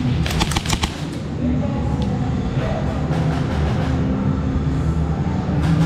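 Airsoft rifle firing a rapid burst of about half a second, a few scattered single shots after it, and another burst starting at the very end, over a steady low rumble.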